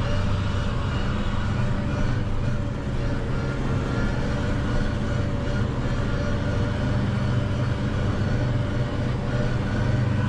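Valtra N 121 tractor's diesel engine running steadily under a mowing load, heard from inside the cab, with the mower drive running.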